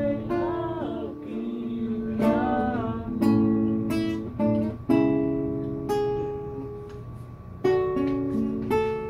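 Acoustic guitar strummed one chord at a time, each strum ringing out and fading before the next, with a man singing along in the first few seconds.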